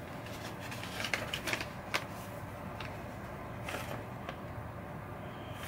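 Paper and packaging handled by hand, crinkling and rustling. A cluster of crinkles and light clicks comes about a second to two seconds in, with another brief rustle near four seconds.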